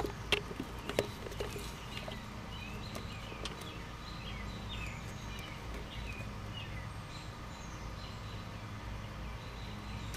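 A few sharp clicks in the first second as a hand works among the hoses in the engine bay, then faint birds chirping over a steady low hum.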